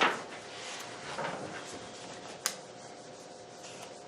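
Board eraser rubbing writing off the board in a few wiping strokes, the first the loudest, with a single sharp tap about two and a half seconds in.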